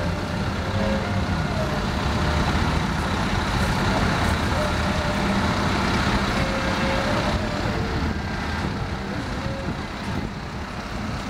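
Street traffic: a steady rumble of cars and trucks passing on a busy city road.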